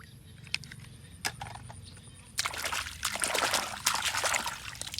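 Water sloshing and splashing for about two seconds, starting a little over two seconds in, after a few scattered clicks.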